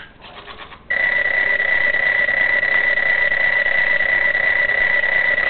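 Roboquad toy robot sounding a loud, steady electronic tone that starts about a second in and holds unchanged.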